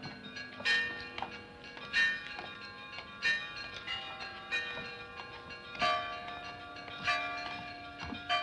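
Several church bells of different pitches ringing together, with a strong stroke about every one and a quarter seconds and lighter strokes in between, each note ringing on.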